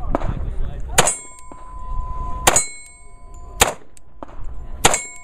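A Glock 21 Gen 4 .45 ACP pistol is fired four times, one to one and a half seconds apart. Each shot is followed by a long metallic ring from steel targets being hit.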